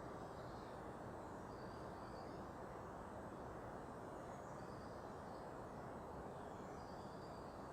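Steady low hum of distant city traffic, with faint, short, high bird calls coming through several times.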